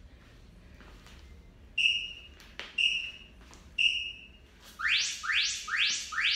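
Interval timer beeping three times, about a second apart, counting down into a Tabata work interval, followed by four quick rising whooshes.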